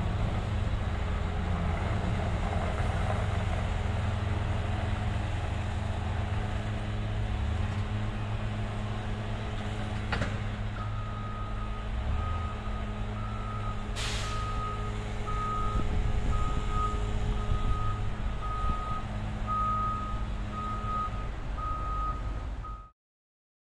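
A heavy vehicle's engine idling with a steady low rumble while a backup alarm starts beeping about eleven seconds in, one plain tone about once a second. A short sharp hiss of air comes about fourteen seconds in, and the sound cuts off suddenly near the end.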